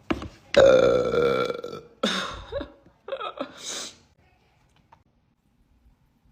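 A woman burping: a brief burp right at the start, then one long, loud, pitched burp lasting over a second, followed by two or three shorter burps within the next two seconds.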